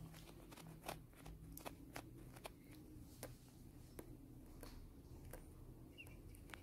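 Near silence: faint room tone with a low hum and scattered, irregular faint clicks.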